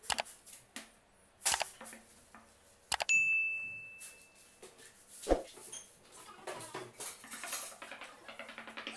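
Subscribe-reminder sound effects: a few sharp mouse-click sounds, then a single bell ding about three seconds in that rings on for over a second before fading. Faint rustling follows near the end.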